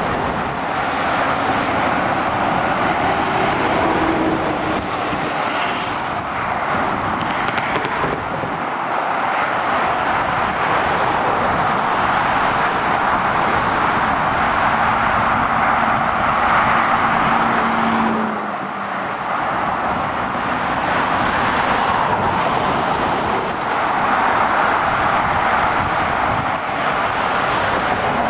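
Continuous motorway traffic heard from a bridge above: heavy goods lorries and cars passing beneath, their tyre and engine noise swelling and easing as each goes by. A steady low hum runs for a few seconds past the middle and cuts off.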